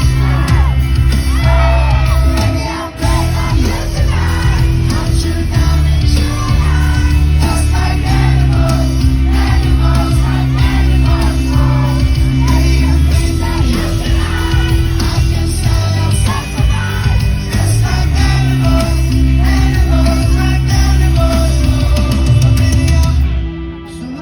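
Live rock band playing loud with heavy bass, a male lead voice singing over it and crowd shouting, heard through a phone-style recording in a large hall. The band drops out abruptly about a second before the end.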